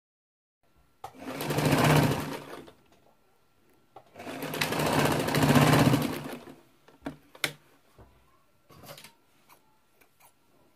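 Electric straight-stitch sewing machine stitching a dart in two short runs, each speeding up and then slowing to a stop, followed by a few sharp clicks as the work is handled and the thread is cut.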